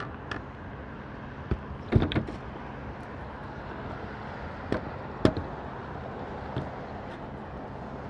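New plywood sheathing being set and fitted onto a roof deck: about six sharp, irregular knocks and thumps, the loudest about two seconds in, over a steady low hum.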